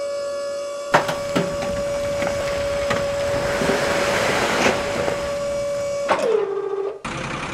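Sand and dirt pouring out of a toy dump truck's tipped bed into a muddy pit: a rushing hiss with scattered clicks starting about a second in, over a steady whine. The whine drops in pitch and cuts off near the end, and an engine-like hum starts just after.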